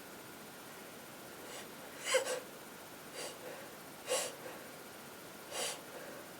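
A person with a head cold taking short, noisy sniffing breaths through a congested nose, four in quick succession with the loudest about two seconds in.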